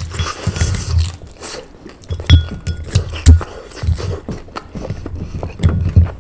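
Close-miked eating sounds of people eating gyoza dumplings: chewing, with repeated sharp clicks and clinks of utensils against dishes and dull low thumps, a few of the clinks ringing briefly.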